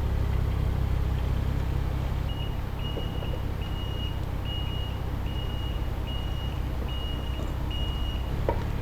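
Excavator's diesel engine running steadily while its travel alarm beeps about eight times at an even pace, a little more than once a second, as the machine moves.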